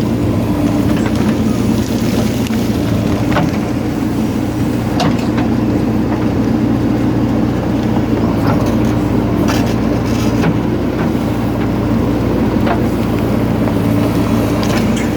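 JCB 3DX backhoe loader's diesel engine running steadily at working revs, with scattered short clicks and knocks over it.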